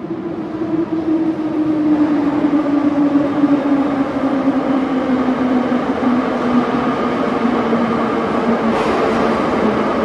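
Electric subway train pulling in: the rumble of the cars on the track swells over the first two seconds and then holds. Over it, a steady motor whine slowly falls in pitch as the train slows. A faint short hiss comes near the end.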